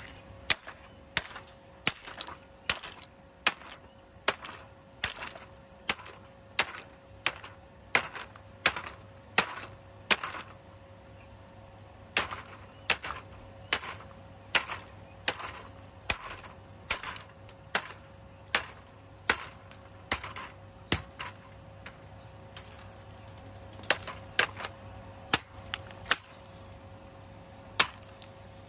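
A plastic stand fan being smashed apart: a long run of sharp, uneven cracks and knocks, about one or two a second, some much louder than others, as its blade and housing break up. A steady low hum runs underneath.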